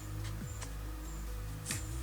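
Background music: held low bass notes, with short drum hits that drop quickly in pitch and light high ticks.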